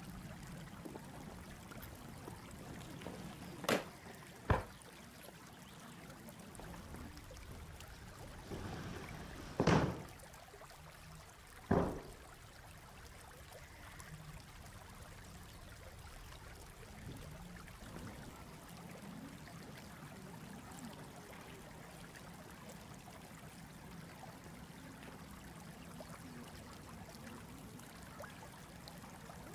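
Steady background hiss, broken by four sharp slaps from a Chen style tai chi performer's explosive movements: two close together about four seconds in, and two more around ten and twelve seconds in.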